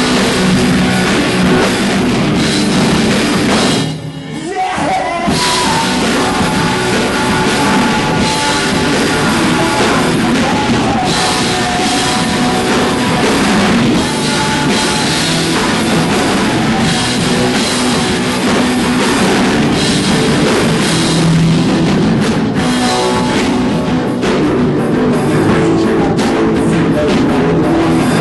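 Live rock band with a drum kit and crashing cymbals playing loudly in a heavy style. The music drops out briefly about four seconds in, then plays on.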